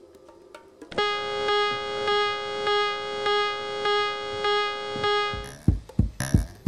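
A single held electronic keyboard note, steady in pitch and pulsing a little under twice a second, starting about a second in and lasting about four and a half seconds. Near the end comes a quick run of short low thumps.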